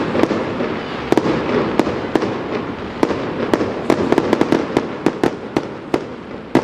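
Fireworks going off: a steady crackling wash with many sharp cracks and bangs, most crowded about four to five seconds in.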